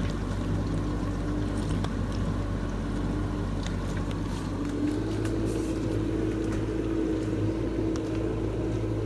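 Samsung DW80R5060US dishwasher's wash pump running steadily during its diagnostic spray test, with water spraying from the spinning spray arms inside the tub. The pump's hum steps up slightly in pitch about halfway through.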